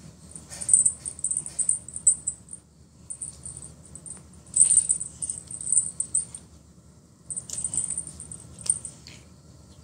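A feather wand cat toy being shaken and batted at, giving quick, high rattling ticks in three spells of a second or two each.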